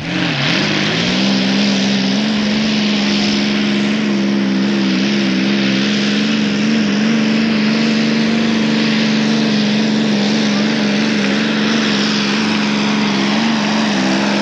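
Modified pulling tractor's engine at full throttle, pulling the weight-transfer sled down the track. The pitch dips briefly at the launch, then holds high and steady, with a heavy rasping exhaust noise over it.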